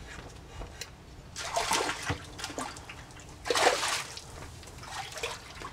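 A small hooked sheepshead splashing at the water's surface as it is reeled in. There are two main splashes about two seconds apart, the second the loudest, then a few smaller ones.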